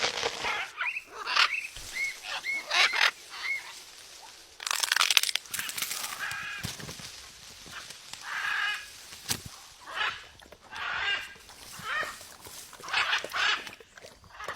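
Parrot calling again and again: short pitched squawks and chirps every second or two, with a louder, harsher burst about five seconds in.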